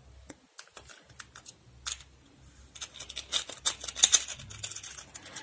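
A clear plastic compartment box being handled and opened: a few scattered light clicks, then from about three seconds in a busier clatter of small plastic stitch markers being picked through in the box.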